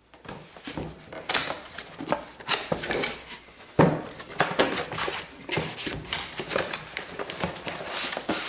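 Barn door hardware kit being unpacked: a cardboard box and packaging rustling, with irregular clicks and clatters of metal parts being handled.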